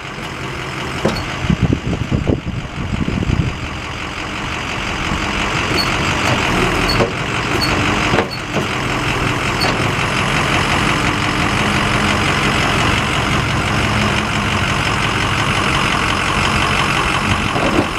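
The 2006 Ford F-450's 6.0-liter diesel V8 runs while its PTO-driven hydraulics raise the Vulcan wheel lift. The sound grows louder over the first few seconds, then holds steady, with a clunk about eight seconds in.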